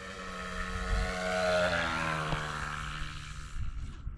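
Seagull Boomerang trainer RC plane's motor and propeller, the buzz growing louder as the plane comes close. After about two seconds its pitch falls and the sound fades, dropping away sharply near the end.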